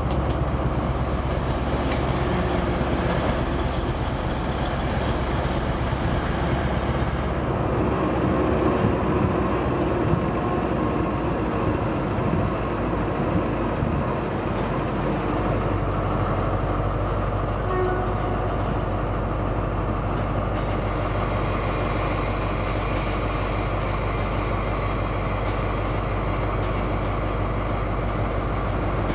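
Diesel multiple-unit trains running: first a Class 185 Desiro unit under way, then a Class 158 Express Sprinter unit with its diesel engine running as it pulls out. A steadier low engine drone sets in about halfway through.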